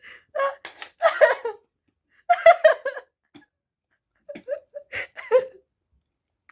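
A person giggling and laughing in three short spells with pauses between.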